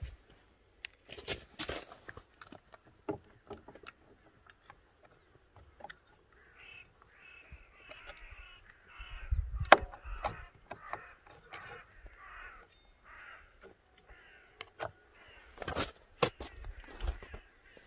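A crow cawing over and over, about a dozen harsh caws in a row through the middle. Alongside, sharp clicks and knocks as a rubber drive belt and the variator parts of a Honda Dio scooter are handled and fitted over the rear clutch, the loudest a single thump about halfway through.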